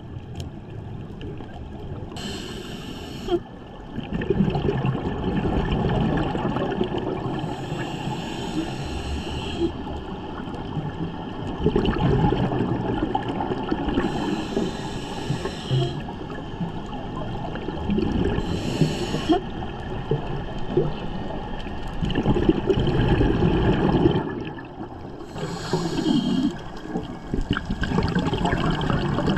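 Scuba diver breathing through a regulator underwater: short hissing inhalations alternate with longer low rumbles of exhaled bubbles, about one breath every five to six seconds.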